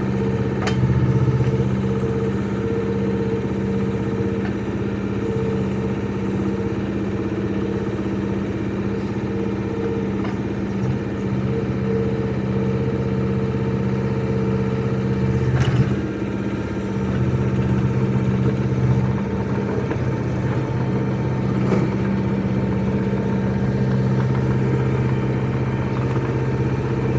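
Small diesel engine of a Yanmar SV05 mini excavator running steadily, its note shifting now and then as the load changes, with a few short clunks.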